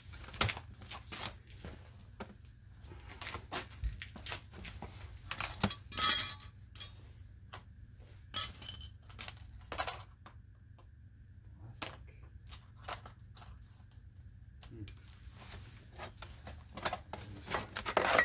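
Small metal parts from a Sentry fireproof safe's broken dial and lock mechanism clinking and knocking as they are handled, in irregular clicks, a few of them ringing briefly.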